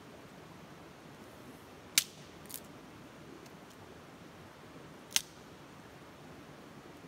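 Three sharp cracks of wood over a steady low hiss: a loud one about two seconds in, a weaker one half a second later, and another loud one about five seconds in.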